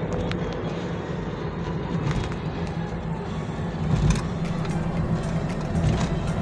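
Car on the move, heard from inside the cabin: steady engine and road rumble, with a louder bump about four seconds in.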